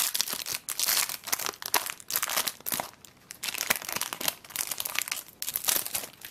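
Foil trading-card booster pack torn open and crinkled by hand: dense crackling of the thin foil wrapper, which stops near the end.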